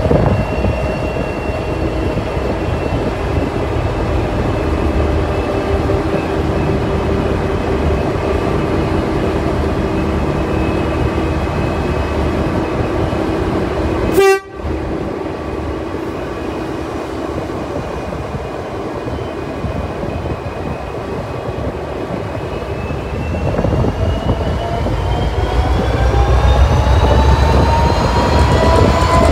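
Diesel-electric locomotive's EMD 645 V12 two-stroke engine idling steadily, with one very brief loud burst about halfway through. From about three-quarters of the way in, the engine note climbs steadily as it throttles up to pull the train away.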